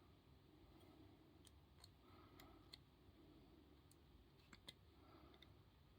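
Faint, scattered small metal clicks, about half a dozen, from a key and a Ruger pin-tumbler padlock being handled as the key is pushed at the keyway.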